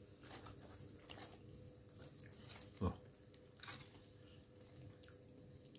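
Faint mouth sounds of a person chewing food, with small clicks and one short soft thump about three seconds in, over a faint steady hum.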